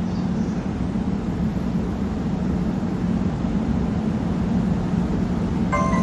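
EF64 electric locomotive pulling away, a steady low hum over rumbling noise. Near the end a station departure melody starts playing in chime tones.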